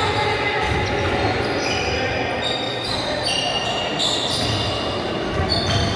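Echoing gym din: balls bouncing on a hard floor amid indistinct voices in a large hall.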